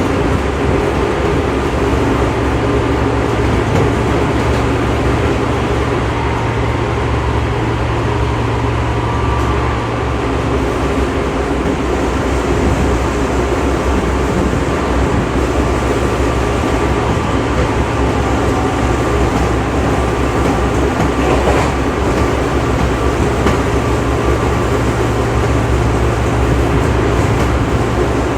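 Odakyu 2000 series electric train running at speed, heard inside a motor car: a steady, loud hum from the traction motors and gearing mixed with wheel-on-rail noise. The low hum eases briefly about ten seconds in, then returns.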